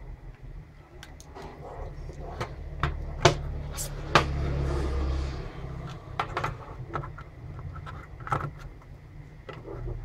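Scattered clicks and knocks from a hard plastic charger case, its circuit board and a pair of pliers being handled. A low steady rumble runs underneath and swells for a second or so about four seconds in.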